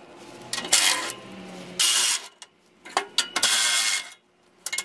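Ratchet wrench clicking in about three short bursts, each stroke a rapid run of pawl clicks, as 12 mm skid plate bolts are being loosened.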